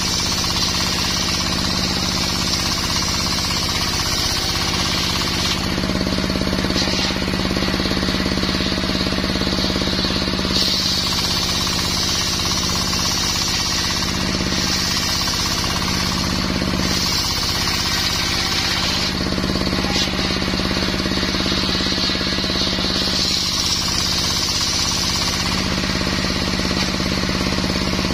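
Brush-cutter engine driving a circular saw blade through mahogany wood, running continuously. Its note shifts every few seconds as the blade bites into the wood and eases off.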